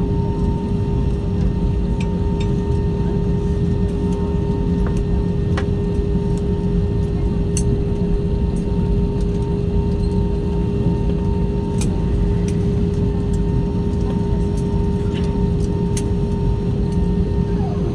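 Steady cabin hum of a parked Airbus A320, the aircraft's air system running, with a constant mid-pitched whine and a fainter higher tone that drops away near the end. A few faint clicks over it.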